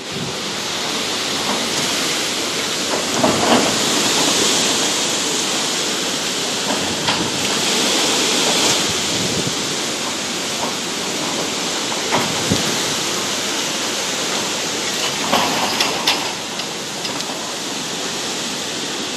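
Hurricane wind and heavy rain: a steady, loud rushing noise, with a few brief sharp crackles spread through it.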